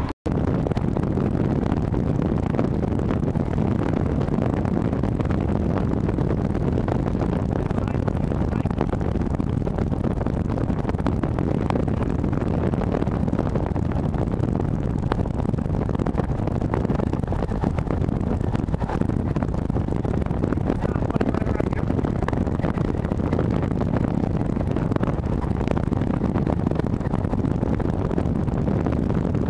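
Steady road and engine noise of a car being driven, heard from inside the cabin, with a low, even rumble throughout and a brief dropout just after the start.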